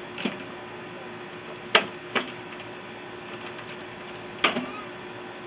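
Sharp metal clanks and knocks from tools and parts while a microwave oven is being taken apart: four separate strikes, two of them close together in the middle, each ringing briefly.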